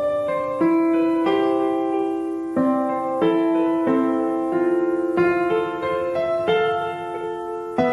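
Background music: a piano playing a slow tune, a new note or chord struck roughly every second and left to ring.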